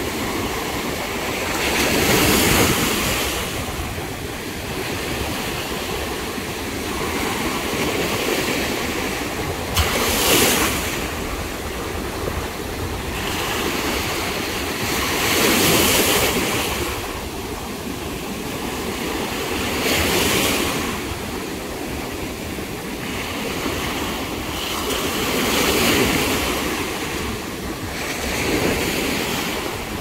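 Ocean surf breaking and washing up the sand at the water's edge, each wave swelling and falling away roughly every five seconds.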